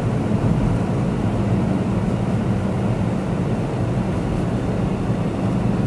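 Car running, heard from inside the cabin: a steady low engine hum with a rumble of noise beneath it.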